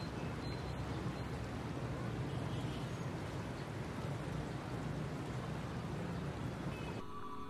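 Dense motorbike and scooter traffic: a steady wash of small engines and street noise. About seven seconds in it cuts off abruptly and sustained ambient music tones begin.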